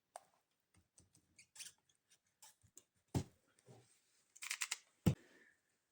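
Small clicks, scrapes and rasps of hand tools cutting a stiff piece off a diesel heater's fuel pump, with two sharper knocks about three and five seconds in.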